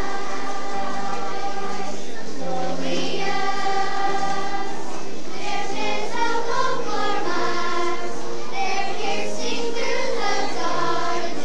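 Children's choir singing a song together, with low held accompaniment notes underneath.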